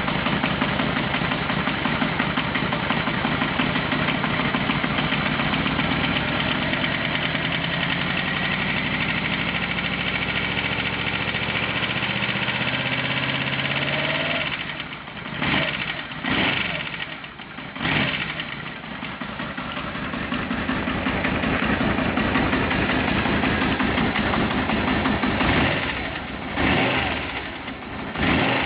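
Yamaha Royal Star Venture motorcycle engine running, with a strange noise in it that the owner cannot place. It climbs slowly in revs for several seconds, drops back to idle about halfway through, then is blipped several times, with a few more blips near the end.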